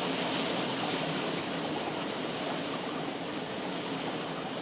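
Heavy rain falling steadily, an even hiss of water with no thunder.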